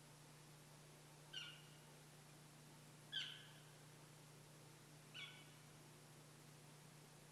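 Three short cow-elk mews from a hunter's elk cow call, about two seconds apart, each sliding down in pitch, over a faint steady low hum. The calls are meant to hold an approaching bull elk.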